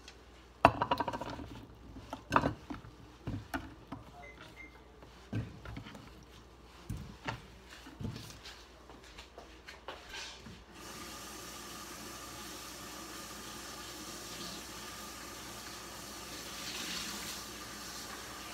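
Scattered knocks and clatters as potato chunks are handled on a wooden cutting board. Then, from about eleven seconds in, a kitchen tap runs with a steady rush of water.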